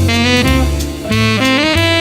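Jazz music: a saxophone playing a melody of short notes over a bass line and drums.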